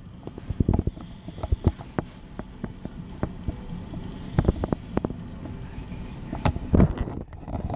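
Irregular soft thumps, clicks and rustles over a low rumble: kittens scuffling and scratching on a fabric cushion right beside a handheld camera, with handling noise on the microphone.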